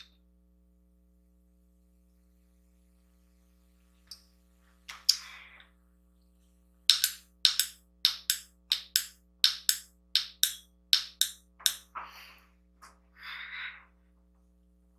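A single knock about five seconds in, then a regular run of about a dozen sharp taps, roughly two a second, for some five seconds, over a faint steady hum.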